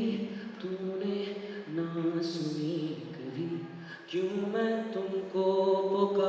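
A man singing an Urdu ballad into a handheld microphone in slow phrases of long, drawn-out notes.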